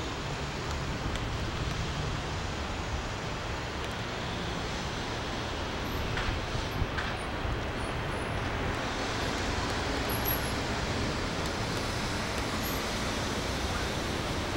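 Steady city traffic noise, an even rush of passing road vehicles.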